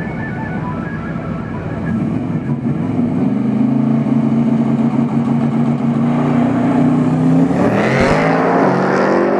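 Two Dodge Chargers, a supercharged Hellcat and a twin-turbo car, running a drag race at full throttle. The engines come in about two seconds in and hold a loud, steady note. About eight seconds in, a car goes past fast and its pitch drops.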